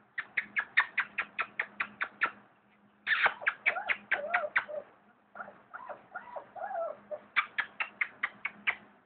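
Rapid kissing-smack sounds made to call a puppy, about five or six a second, in several runs, with a wavering whine in between.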